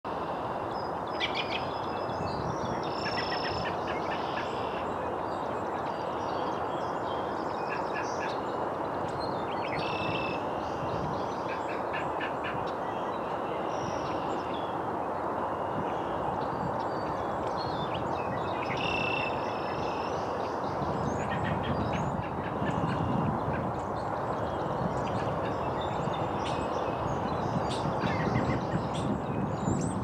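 Short high bird chirps and quick runs of calls come and go over a steady rumbling background noise. The rumble grows heavier and deeper about two-thirds of the way in.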